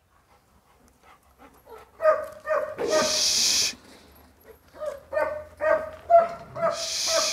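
Kennel dogs barking, yipping and whining in short repeated calls, starting about two seconds in, with two brief hissing bursts mixed in.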